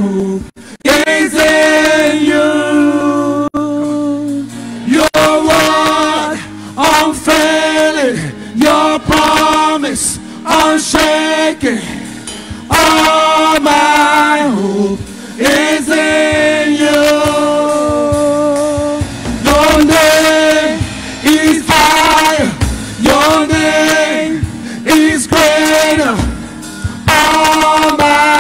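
Live gospel worship song: a man and a woman sing phrases into microphones over sustained keyboard chords.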